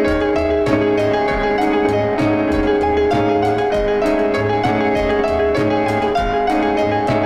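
Instrumental background music: a keyboard melody over a steady beat.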